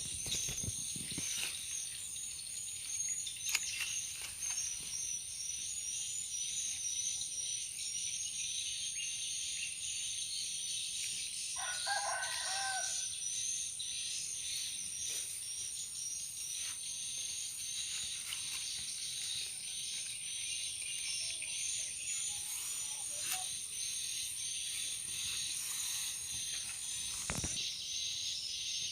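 A steady, high-pitched chorus of crickets or other insects, pulsing continuously. About twelve seconds in, a rooster crows once, and there are a few faint knocks.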